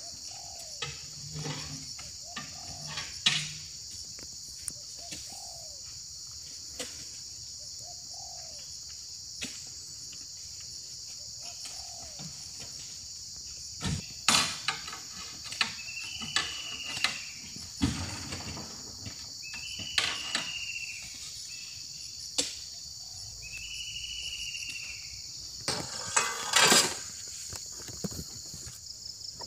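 Steady high-pitched chorus of insects over an oil palm plantation, with short bird calls now and then. In the second half come scattered knocks and thuds as heavy oil palm fruit bunches are heaved into a wooden truck bed.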